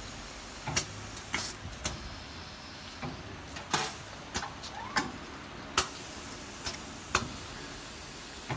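Pneumatic clamps and air valves on an automated rotary-table fiber laser marking machine, giving sharp clicks and short air hisses at irregular intervals, about one a second, over a steady background hum.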